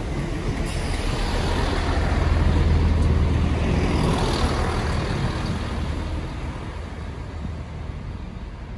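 Great Western Railway Class 165 diesel multiple unit passing through a station at speed, its diesel engine drone and wheel-on-rail noise close by. It grows loudest about two to three seconds in, then fades as the train draws away.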